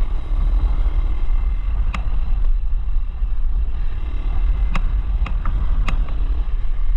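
Motorcycle underway off road, its engine sound buried under heavy wind buffeting on the microphone, with a few sharp clicks or knocks about two seconds in and three more toward the end.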